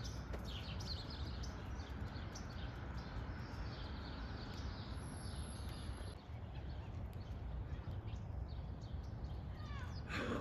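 Outdoor background noise, a steady low rumble, with small birds chirping now and then, mostly in the first few seconds.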